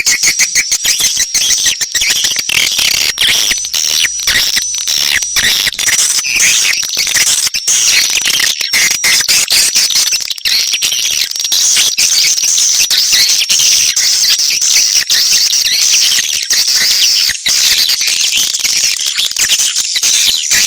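Swiftlet call recording of the kind played in swiftlet nest houses to lure the birds in: a dense, continuous chorus of rapid high-pitched swiftlet chirps and twitters, with a steady high thin tone running beneath them.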